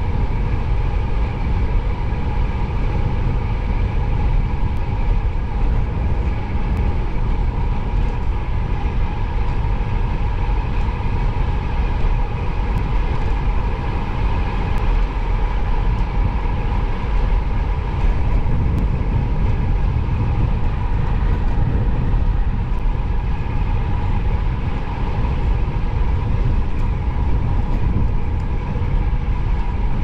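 Wind rushing over the microphone of a camera mounted on a road bike ridden at speed, mixed with the tyres rolling on asphalt, with a steady hum running through it.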